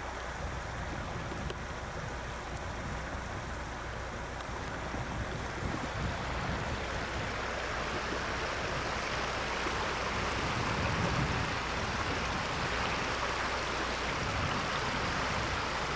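Steady rush of a shallow river's running water, growing louder about halfway through, with some low wind rumble on the microphone.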